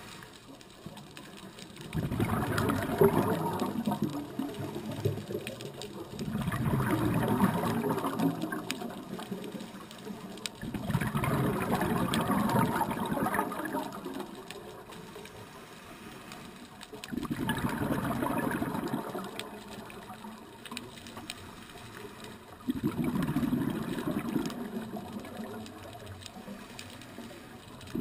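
A scuba diver breathing out through a regulator, recorded underwater: five loud rushes of exhaled bubbles, each two to three seconds long, about every five seconds, with quieter stretches between them for the in-breaths.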